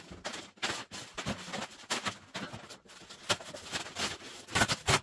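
Irregular rustling, scraping and light knocks of things being handled, with a louder cluster of knocks near the end.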